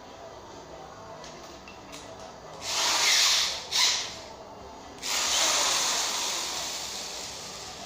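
Power drill run in three bursts: two short ones close together, then a longer one about five seconds in that slowly fades. It is leveling the star-crimped mouth of a plastic shotgun hull.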